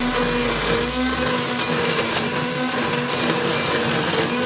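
Electric immersion blender running in a saucepan of shrimp bisque, puréeing the cooked shrimp heads and potatoes: a steady motor hum over the churning of the liquid.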